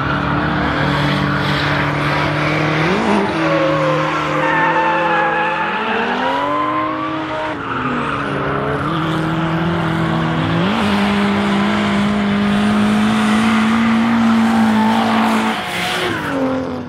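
Drift cars sliding past on the track, engines held high in the revs over tyre squeal. The engine notes dip and climb again several times and fall away near the end.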